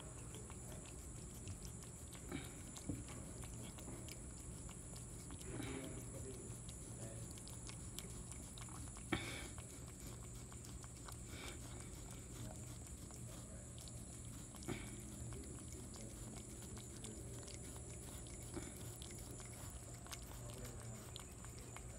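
Cat chewing and licking at a slice of watermelon: scattered faint clicks and smacks, the loudest about nine seconds in, over a low steady hum.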